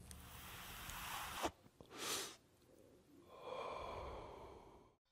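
Faint whoosh sound effects of a logo sting: a swelling hiss, a short swoosh about two seconds in, then a softer swell with a faint ringing edge near the end.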